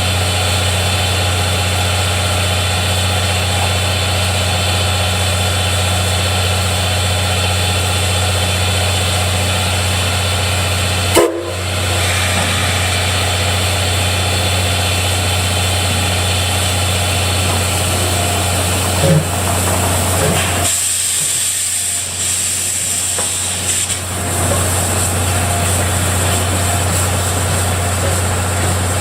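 C57 steam locomotive standing with steam hissing over a steady low hum. There is a sharp click about eleven seconds in, and a stronger, higher hiss of steam for a few seconds past the twenty-second mark.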